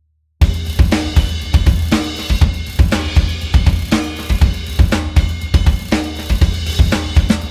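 Sampled drum kit from the EZdrummer 3 Funkmasters library playing a groove of kick, snare, hi-hat and cymbals, starting suddenly about half a second in, over a steady low bass tone.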